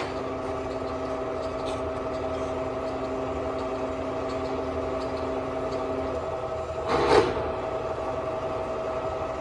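Mazak Hercules Ajax manual lathe running under power, its gear train giving a steady whine of several held tones. About six seconds in the lowest tone drops out, and a second later comes a brief louder rasp.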